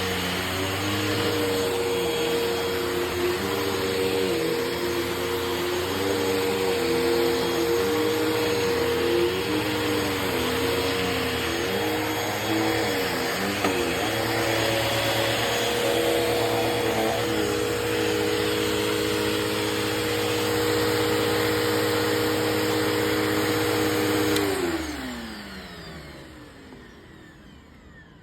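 Vacuum cleaner running, its motor whine wavering up and down in pitch for about the first half, then holding steady. About three-quarters of the way through it is switched off and the whine falls away as the motor spins down.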